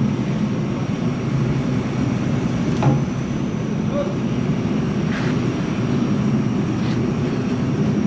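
Backhoe loader's diesel engine running at a steady idle, with a sharp click about three seconds in and a couple of fainter ones later.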